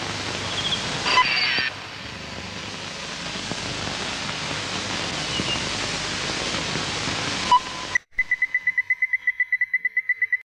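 A steady loud hiss with a few faint chirps, cutting off after about eight seconds, then rapid electronic beeping at a single high pitch, about a dozen beeps a second.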